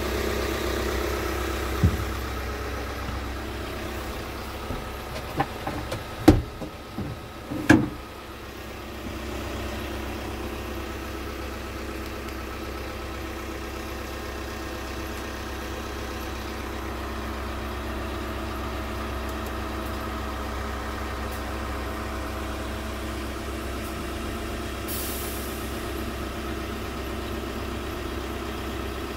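Scania R truck's diesel engine idling steadily, heard from inside the cab. A few sharp knocks and thumps stand out between about five and eight seconds in, and a short hiss comes near the end.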